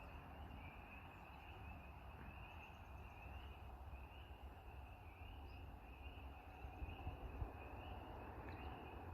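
Faint chorus of spring peepers: many high peeps blending into one steady, slightly wavering trill, over a low rumble.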